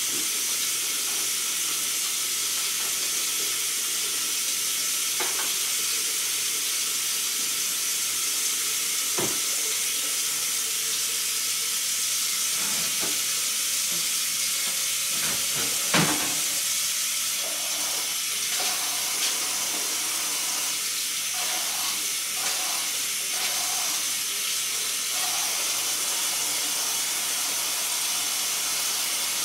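A steady hiss throughout, with a few clicks and knocks of items being handled at a kitchen counter; the loudest knock comes about sixteen seconds in.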